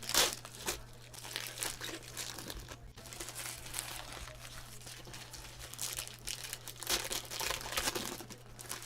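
Plastic packaging crinkling and rustling in irregular bursts as sealed trading card boxes and packs are handled and unwrapped, over a steady low hum.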